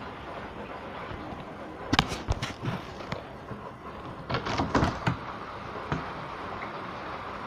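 Steady hiss of rain, with two quick clusters of sharp knocks and rattles, about two seconds in and again past the middle, and one more knock a second later.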